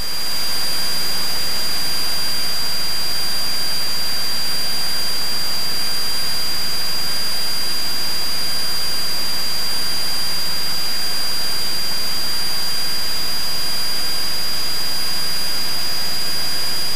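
Steady cabin drone of a Cessna 172's piston engine and propeller in level cruise, a loud even rushing noise with a thin high whine held over it throughout.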